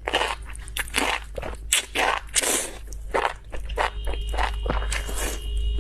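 Close-miked eating of spicy enoki mushrooms: a dense, irregular run of wet biting, chewing and slurping noises.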